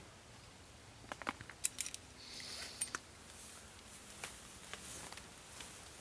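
Camping gear being handled at a tent: a quick cluster of sharp clicks about a second in, then a short rustling hiss and a few scattered small clicks.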